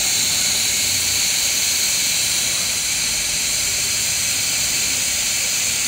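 Steady high-pitched hiss of pressurised gas escaping from a car's CNG (natural-gas) cylinder while the oil that has built up inside it is drained out.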